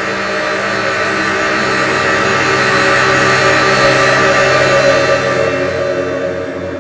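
Synthesizer drone music: dense layered held tones under a noisy wash, swelling louder toward the middle and easing off near the end.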